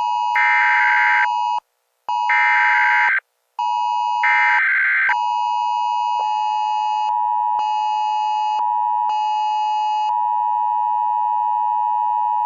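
Emergency Alert System tones: three screeching SAME digital data bursts, each about a second long with short gaps between, sounding over a steady electronic tone. They are followed by a long, steady electronic attention tone that starts the next alert.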